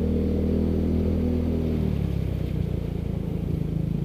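A Yamaha Mio scooter's single-cylinder engine running at low speed as the scooter wades slowly through deep floodwater. The engine note drops about two seconds in and comes back up near the end as the throttle is eased and reopened.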